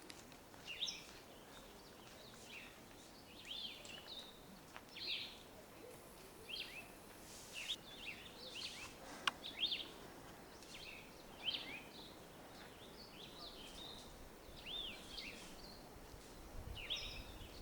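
Small birds calling outdoors: short, arched chirps repeated every second or so over a faint background.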